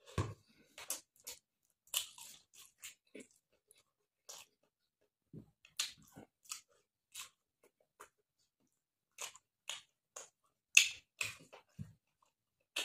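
Close-up eating sounds of a man eating rice and pork curry by hand: chewing and wet lip smacks, short and irregular, with quiet gaps between. The loudest smack comes about eleven seconds in.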